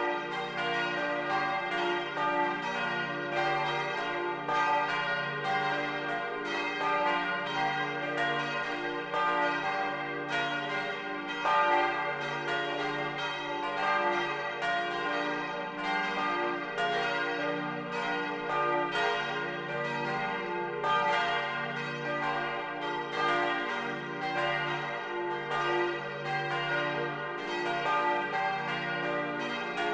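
Four bronze church bells tuned d', f', g' and b', cast in 1950 by Junker of Brilon, ringing together in full peal, heard close up inside the bell tower: a continuous overlapping run of clapper strikes over a lasting ringing hum.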